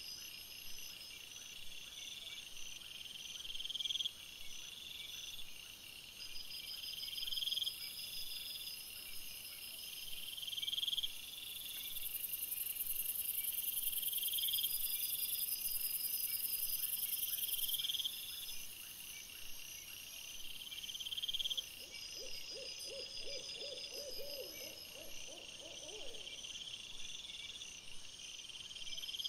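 Steady high-pitched insect-like chirring that swells every three or four seconds. About 22 seconds in, a wavering, hoot-like animal call lasts about four seconds.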